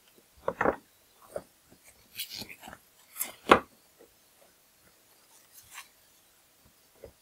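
Cellophane wrap being pulled and peeled off a box, crinkling and crackling in short irregular spells, with a few knocks of the box being handled; the loudest crackle comes about three and a half seconds in.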